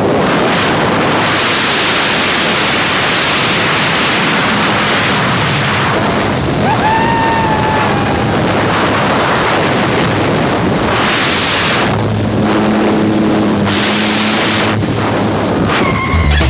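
Loud rushing wind on the microphone, with the steady drone of the jump plane's engine coming and going.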